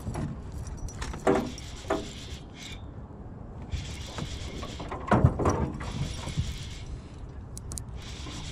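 Fishing reel being cranked and its drag ticking as a hooked pike pulls against the line, in stretches, with a few short knocks of handling; the loudest knock comes a little past the middle.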